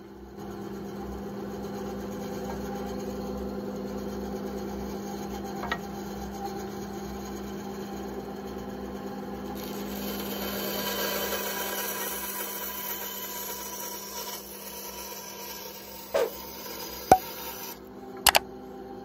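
WEN 3959 9-inch benchtop band saw running with a steady motor hum while its blade cuts through a small piece of wood, the rasping cut growing louder about halfway through. A few sharp clicks come near the end.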